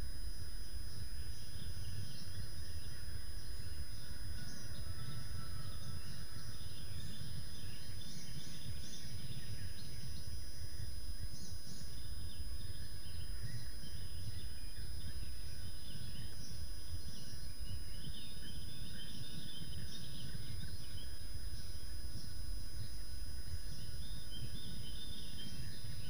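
Steady low rumbling noise from an outdoor webcam microphone, with faint scattered bird chirps and calls over it and a thin steady high whine.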